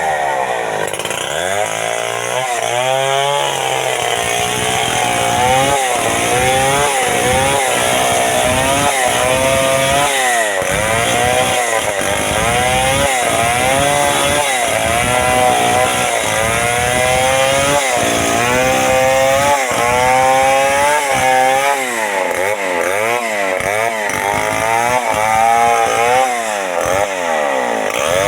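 Two-stroke chainsaw cutting into the trunk of an amplas tree under load, its engine note repeatedly rising and sagging as the chain bites and eases.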